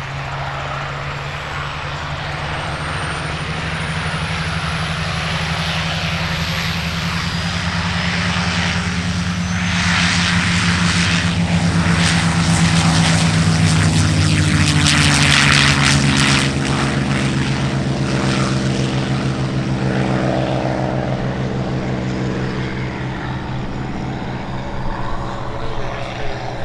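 An F4U-5 Corsair's radial engine and a P-51 Mustang's V-12 engine at full takeoff power, a steady propeller-aircraft drone that builds as the pair roll down the runway. It is loudest about halfway through as they pass, the pitch dropping slightly, then eases a little as they lift off and climb away.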